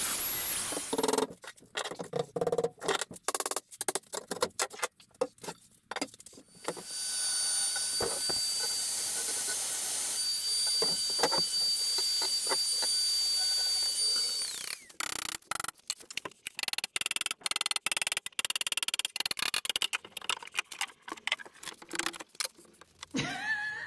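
Angle grinder cutting through a polished stone benchtop. The motor runs with a steady high whine for several seconds, then winds down about two-thirds of the way through. Before and after that stretch the noise comes in short choppy bursts.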